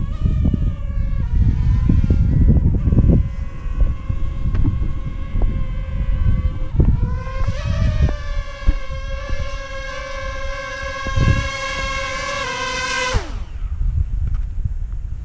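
Mountain bike rolling over bumpy slickrock, with heavy wind buffeting on the camera microphone and knocks from the bike. Over it runs a steady high whine with overtones, which climbs a little about seven seconds in, then glides down sharply and stops near the end.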